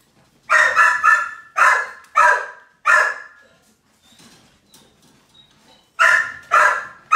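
A dog barking: about five short, loud barks in quick succession, then a pause, and two more barks about six seconds in.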